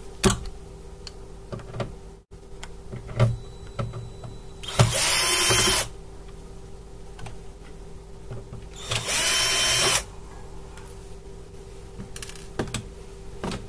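An electric screwdriver runs twice, for about a second each time, around five and nine seconds in, undoing the screws that hold an inverter's control card. Light clicks of handling come between the runs.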